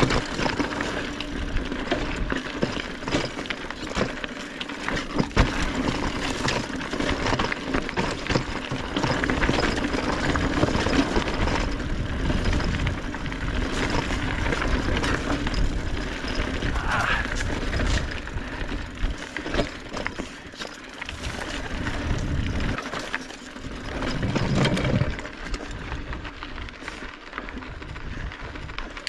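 Mountain bike riding along a dirt singletrack trail: steady tyre and trail noise with frequent clicks and rattles from the bike over the bumps.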